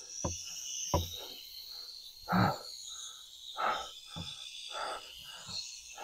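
Rattlesnake rattling: a steady, high dry buzz from its tail, the sign of a defensive, agitated snake. Over it come several short, louder rustling noises.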